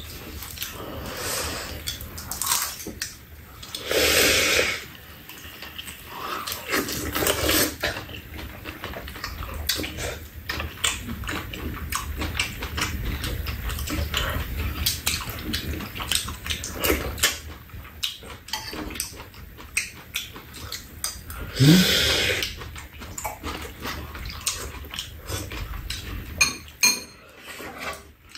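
Metal spoons and chopsticks clinking against bowls and a steel tray during a meal, with two louder slurps of soup, about four seconds in and again past the middle. A low steady hum runs underneath.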